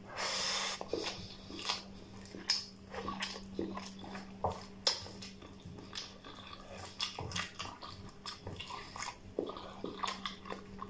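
A person eating curry and rice by hand close to the microphone. A loud rush of noise comes in the first second as a handful goes into the mouth. After that come irregular wet chewing and lip-smacking clicks.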